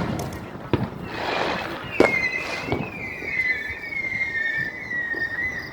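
Consumer fireworks going off: several sharp pops with a hiss. Then a single high whistle starts about two seconds in and is held for over three seconds, slowly falling in pitch.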